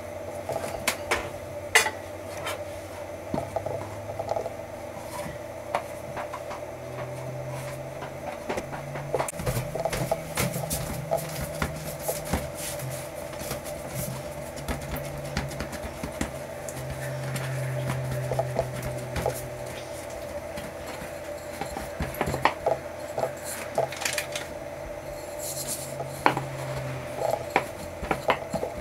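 Wooden rolling pin knocking and rolling on a floured stainless steel worktop while hands pat and press bread dough flat: scattered sharp taps and knocks, over a steady hum.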